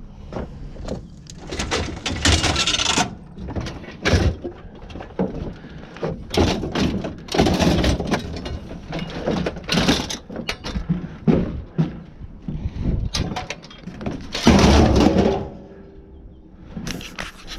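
Scrap metal being handled and thrown: an irregular string of clanks, bangs and longer crashes, with two loud crashes about two seconds in and again near the end.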